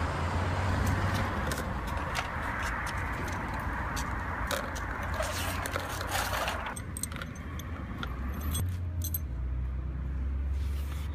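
Small steel chain clinking and rattling as it is handled on concrete, a run of light metallic clicks. A steady hiss under it cuts off about seven seconds in.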